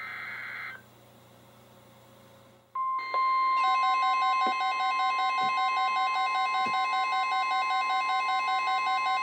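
The last SAME digital header burst of a NOAA Weather Radio alert, a buzzy data chirp under a second long. About three seconds in, the steady 1050 Hz weather-radio warning tone starts, and within a second several weather radios set off their own alarms: a chorus of pulsing beeps over the steady tone, throbbing about twice a second. This marks the start of a new alert, a Special Marine Warning.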